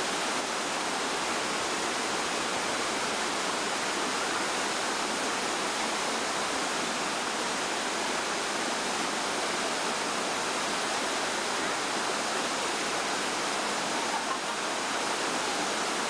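Waterfall cascading over rocks: a steady, unbroken rush of falling water.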